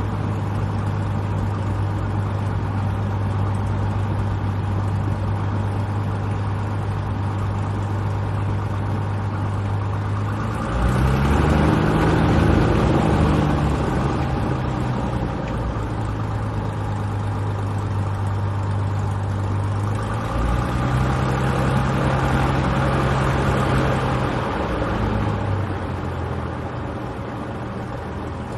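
Single-engine light airplane's piston engine and propeller, heard from inside the cabin, running steadily at low power. The engine briefly runs up to higher power twice, once about ten seconds in and again about twenty seconds in, for a few seconds each, then settles back.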